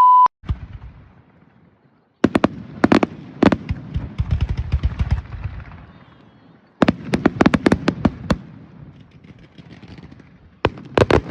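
Fireworks going off in rapid volleys of sharp bangs, with crackling in between; the volleys come about 2, 7 and 10.5 seconds in, building toward the loud finale. A brief steady beep sounds at the very start.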